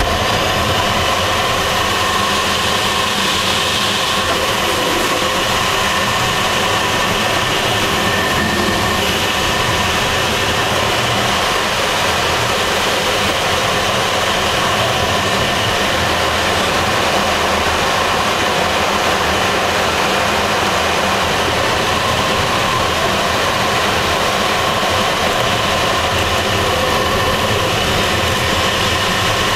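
Steady rush of air streaming past the canopy of a Swift aerobatic glider in flight, heard inside the cockpit, with a faint hum of several steady tones in it.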